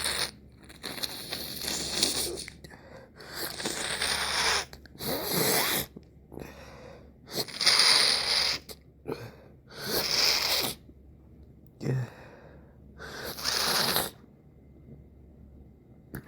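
A man with a stuffy, congested nose sneezing, stifling sneezes and sniffing in a run of short, breathy bursts with brief gaps between them. The loudest comes a little under halfway through.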